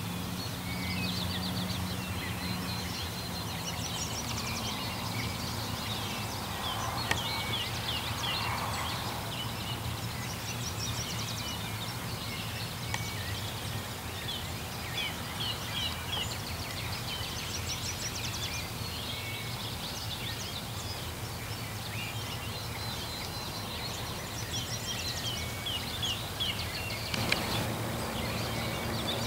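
Songbirds singing quick, high chirping phrases throughout, with wild turkey gobbling mixed in.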